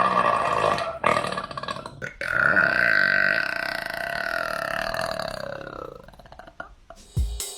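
A woman burping: one burp ends about a second in, a short one follows, then a long, loud burp lasts about four seconds and trails off. Music with drums starts just before the end.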